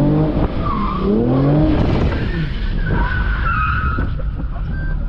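A Lexus RC 350's V6 revs up hard twice in the first second and a half while the car drifts. The tyres then hiss and slide on wet pavement as the engine note drops back.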